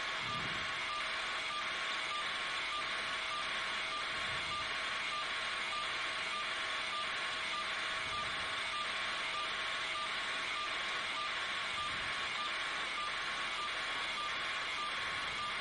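Steady cabin noise of a news helicopter, a constant drone with a regular pulsing about twice a second.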